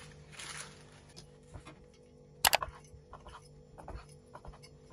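Kitchen knife and utensils knocking on a wooden cutting board as a soft rolled omelette is sliced. A sharp knock about halfway through is the loudest, followed by several lighter taps. There is a short rustle near the start.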